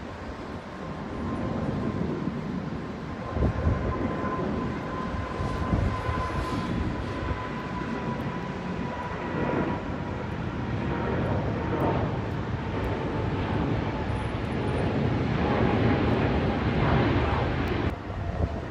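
Jet airliner's engines: a steady roar with a thin whine that slowly drops in pitch as the aircraft passes, growing louder toward the end.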